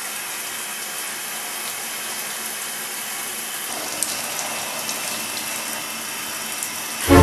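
Shower water running steadily, spraying onto a person and the bathtub floor, with a few faint splashes. Music cuts in loudly right at the end.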